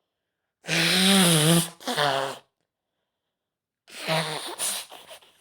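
A woman with a cold sneezing loudly twice, about three seconds apart; each sneeze is voiced and trails into a shorter second burst.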